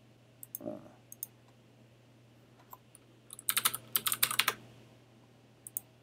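Typing on a computer keyboard: a quick run of keystrokes lasting about a second, entering a short name, with single mouse clicks before it and a couple near the end.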